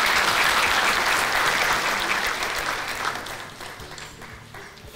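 Audience applauding: many people clapping, loudest at first and dying away over the last two seconds.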